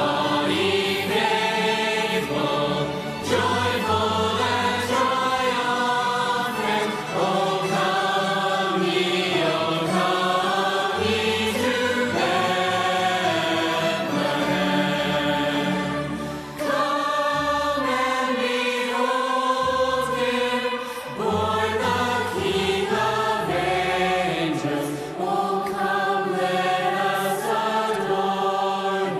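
A choir singing with instrumental accompaniment, held low bass notes underneath that change every second or two.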